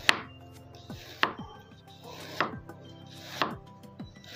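Chef's knife slicing through fresh ginger root and knocking on a bamboo cutting board: four sharp cuts about a second apart.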